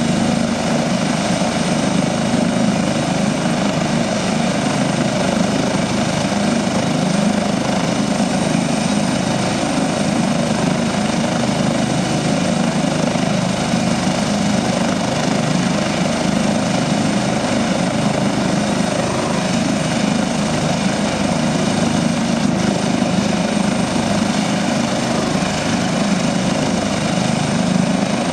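Airbus H145 twin-turbine helicopter running on the ground with its main rotor turning: a steady, unchanging rush of rotor and engines with a high turbine whine on top.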